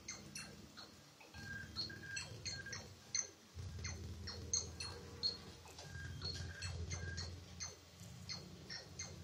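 Electronic sound effects played through loudspeakers: many short clicks and high beeps at an uneven pace, some dropping quickly in pitch. Under them a low hum comes and goes, strongest from about three and a half seconds in.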